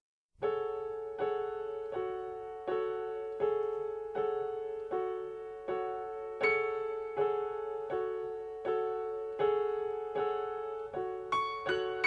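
Background music: an electric piano playing a gentle repeated chord or note about every three-quarters of a second, each dying away, with a few quicker high notes added near the end.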